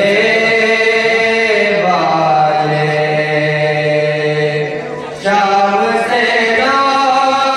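A reciter chanting a Shia mourning lament (noha) in long held notes with slow glides in pitch, breaking off briefly about five seconds in and then taking up the next line.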